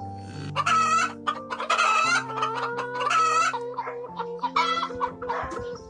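Chickens calling, with several loud pitched calls about a second apart, over background music with long held low notes.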